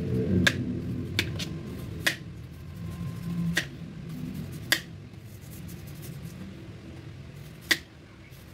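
Sharp, irregular clicks of a kitchen knife peeling a firm unripe mango by hand, about seven in all, the blade snapping through the skin.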